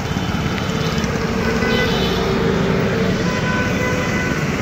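A motorcycle engine idling with a fast, even low pulse. Over it, a vehicle horn from road traffic sounds in long held tones through most of the stretch.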